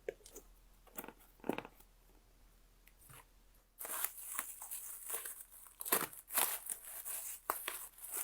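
Plastic packaging being unwrapped and crumpled by hand: a few light clicks and taps, then from about four seconds in a stretch of crinkling and tearing.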